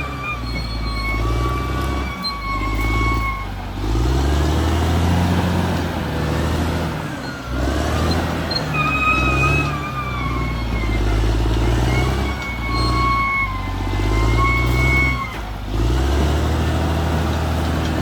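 Caterpillar D6R XL bulldozer's diesel engine working under changing load, its pitch stepping up and down every second or two, with a high metallic whine coming and going over it.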